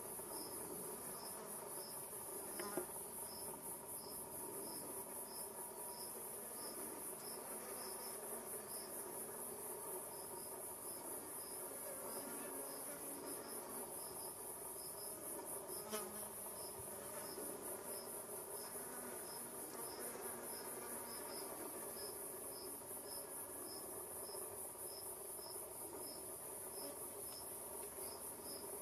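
Insect chorus: a steady high-pitched chirring with a regular chirp about twice a second, with flies buzzing at times. Two light clicks, about three seconds in and halfway through.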